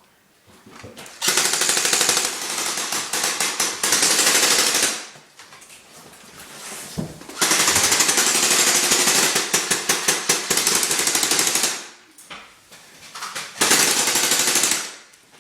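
Airsoft gun firing on full auto: three long bursts of rapid shots.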